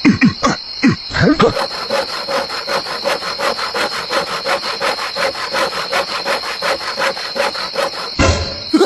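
Saw cutting through wood in fast, even back-and-forth strokes, about five a second, starting about a second and a half in and stopping near the end.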